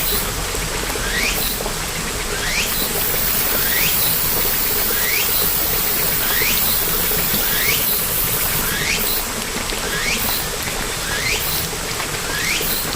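Steady rain ambience: an even hiss of falling rain. Over it a short rising chirp repeats about once every second and a quarter.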